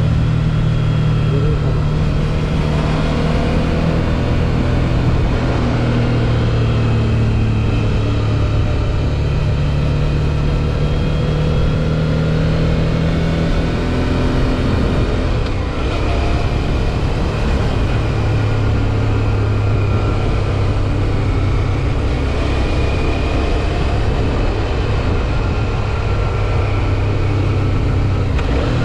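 Suzuki V-Strom 650 XT's V-twin engine running steadily on the move, its note rising and falling a little as the throttle changes.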